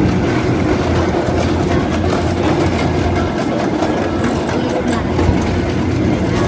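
Train running steadily along its track: a continuous rumble and low hum, with the wheels clacking over the rails.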